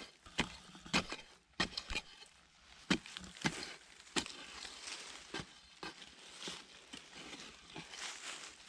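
A long-handled digging tool with a metal blade chopping repeatedly into stony soil and dry leaves, digging out a tarantula burrow: a series of sharp, irregular strikes, the strongest about a second in and about three seconds in.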